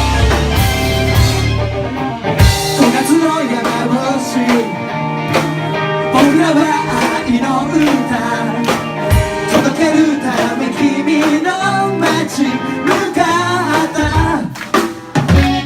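Live rock band playing, with drums and guitar. A heavy bass drops out about two seconds in, leaving a wavering melodic line over the guitar, and the bass comes back near the end.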